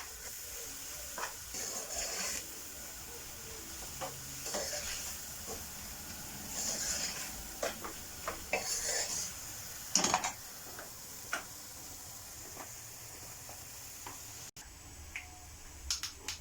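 Curry base of onions, spices and tomato puree sizzling in a pan while a spoon stirs and scrapes through it in several strokes. A few knocks of the spoon against the pan come about ten seconds in.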